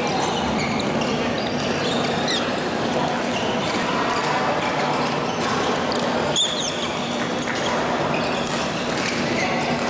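Busy badminton hall ambience: racket strikes on shuttlecocks, thuds of footwork and chirping shoe squeaks on the court floor over a steady wash of voices from several courts. A sharper squeak stands out about six and a half seconds in.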